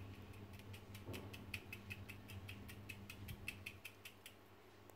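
Garlic powder shaker being shaken over raw chicken: a steady run of light ticks, about five a second, that stops shortly before the end.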